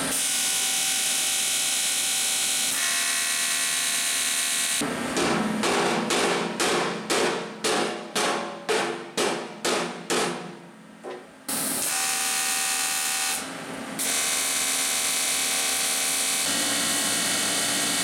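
Steady harsh buzz of an arc welding aluminum. It stops for a stretch in the middle while about a dozen hammer blows ring on the aluminum fuel cell, about two a second, and then the welding buzz resumes.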